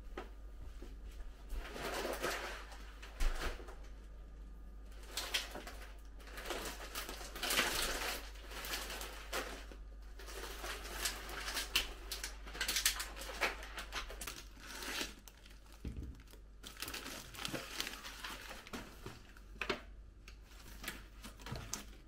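Plastic grocery packaging and a cloth shopping bag rustling and crinkling in irregular bursts as groceries are unpacked, with a few short knocks of items set down on a stainless steel counter.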